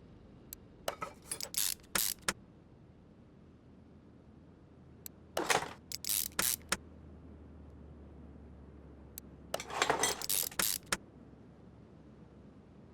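Three short spells of clinking and rattling, hard objects knocking together as they are handled: about a second in, around the middle, and again near ten seconds.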